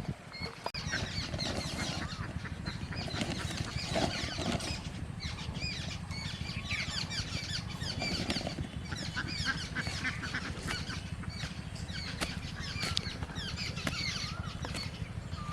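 A dense chorus of many overlapping high, short bird chirps, over a steady low hum.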